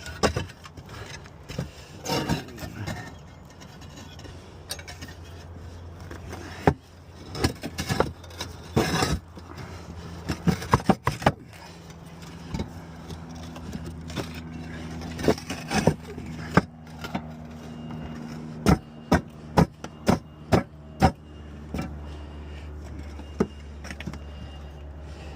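Irregular sharp knocks and clatter, typical of handling and stepping on roof tiles. A steady low motor hum joins about ten seconds in and grows stronger near the end.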